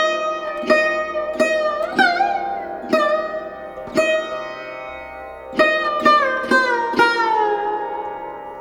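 Background music: a slow melody on a plucked string instrument, each note ringing out and decaying, several of them bent in pitch. There is a gap of about a second and a half before a quick run of notes in the second half.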